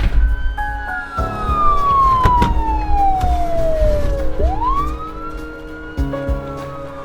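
A siren wail: one long tone falling slowly for about four seconds, then sweeping quickly back up, holding, and beginning to fall again near the end, over background music. A sharp knock lands about two seconds in.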